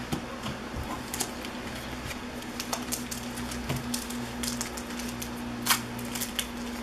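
Trading cards being handled and flipped through one by one: scattered light clicks and slides of card stock, the sharpest about three-quarters of the way through.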